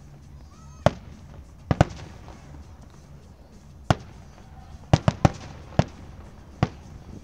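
Aerial firework shells bursting in the sky, about nine sharp booms at irregular intervals, with a quick run of three about five seconds in.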